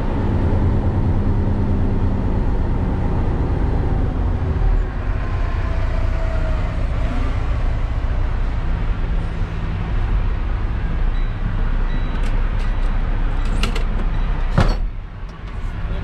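Large diesel engine of farm machinery running steadily under load, a continuous low drone. A sharp click comes near the end, after which the sound briefly drops quieter.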